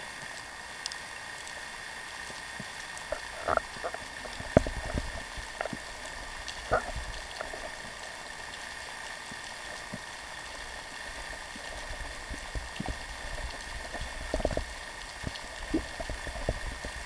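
Underwater sound of a freedive: a steady hiss with scattered short clicks and knocks, the sharpest about four and a half seconds in.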